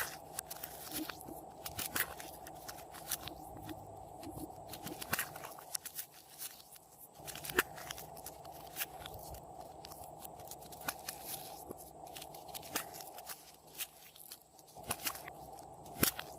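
Clear slime being squeezed and kneaded by hand, giving irregular sharp pops and crackles from trapped air.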